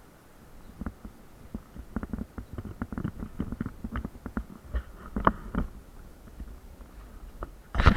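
Irregular knocks and clatter, sparse at first and then coming thick and fast, with a sudden louder burst of clatter near the end.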